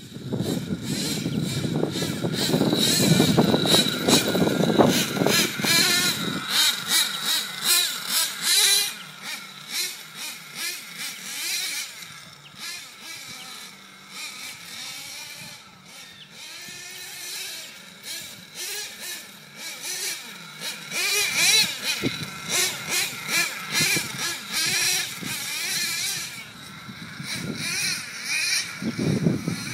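Twin nitro engines of an HPI Savage TwinZilla RC truck running hard, revving up and down as the truck drives around. They are loud for the first several seconds, fade in the middle as the truck gets farther off, and grow loud again about 21 seconds in.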